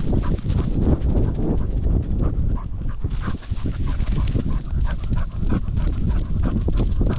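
Cocker spaniel panting as it runs, heard close up from a camera strapped to its back, in a quick repeating rhythm over a constant low rumble of wind and body movement on the microphone.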